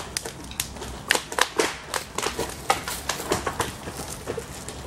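A dead standing pine pole being shaken and pushed by hand: dry wood and branches creak, crack and rattle, with feet scuffing in dry leaf litter, in a quick irregular run of sharp cracks and rustles. The trunk does not break.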